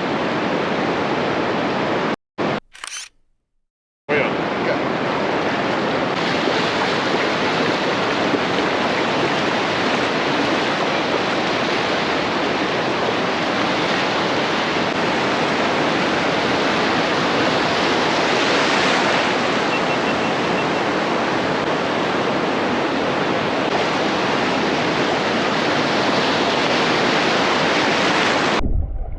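Steady rushing of breaking surf on the beach, with wind on the microphone. It cuts out briefly about two seconds in.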